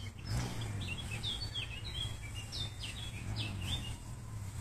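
Songbirds singing: a quick run of short, sweeping chirps starting about a second in and lasting a few seconds, over a low steady rumble.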